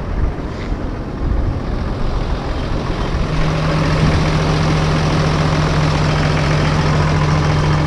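Case IH Puma CVX tractor's diesel engine running steadily at idle. A steady droning tone joins it about three seconds in and holds.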